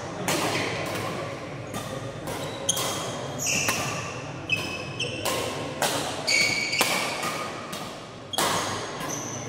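Badminton rally: rackets striking the shuttlecock in a quick run of sharp hits, with court shoes squeaking briefly on the floor between strokes. The hits ring out in the hall.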